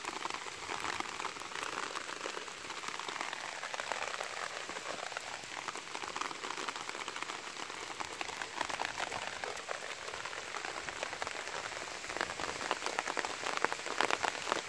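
Rain pattering steadily on wet ground, a dense crackle of small drops that grows a little louder near the end.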